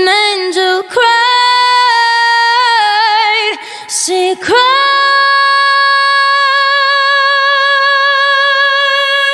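Female voice singing a slow a cappella ballad with vibrato, ending on one long held note from about four and a half seconds in.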